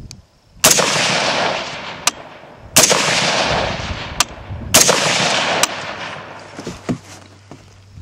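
AR-15-style carbine fired three times, about two seconds apart, each shot followed by an echo fading over a second or more. Fainter sharp clicks fall between the shots.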